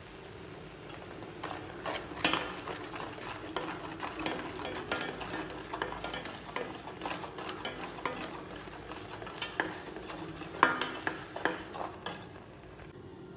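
Steel spoon stirring sugar into boiling china grass (agar) in a stainless-steel pot, with irregular scraping and clinks of metal on the pot, the sharpest clinks about two seconds in and near the end. The stirring stops shortly before the end.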